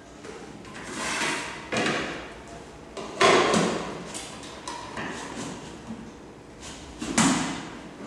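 Knocks and clatter of an aluminium cake pan being set down on a table, the loudest knock about three seconds in. A second sharp clack near the end as a plate is laid on top of the pan.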